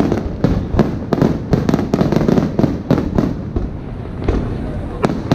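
Aerial fireworks shells bursting in quick, irregular succession, several sharp bangs a second, thinning briefly about two-thirds through before another loud report near the end.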